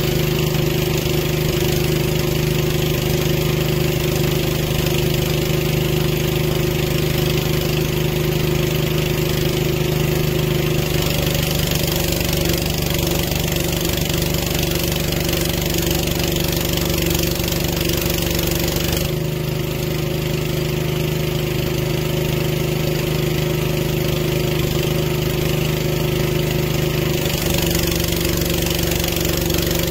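Boom lift's engine running steadily, its note changing a few times as the boom moves the basket.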